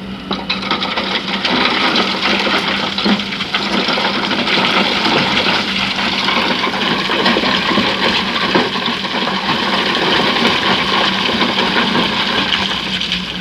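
Loose sand and stones pouring and sliding, a loud rushing full of small clicks, that sets in suddenly and eases off near the end. Beneath it runs the steady hum of the excavator's diesel engine.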